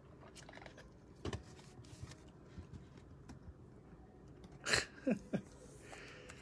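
Quiet handling of a trading card and a clear plastic card stand: scattered soft clicks and taps, with a short louder cluster of scraping clicks about five seconds in.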